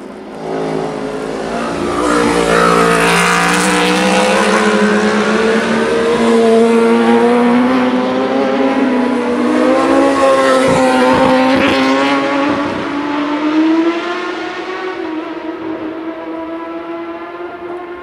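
Racing motorcycle engine at high revs, growing loud as it approaches, loudest as it passes around the bend, then fading away as it leaves. A few sharp cracks come near the middle, while the pitch dips.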